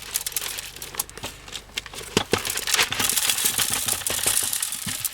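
Ice and rock salt being poured into the bucket of a hand-crank ice cream freezer: scattered clicks and clatter, turning to a steady gritty hiss about three seconds in.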